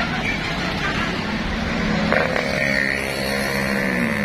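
Busy road traffic: a tractor-trailer's engine and tyres rumbling as it pulls away. About two seconds in, another vehicle's engine note comes up over it and drops in pitch near the end as it passes.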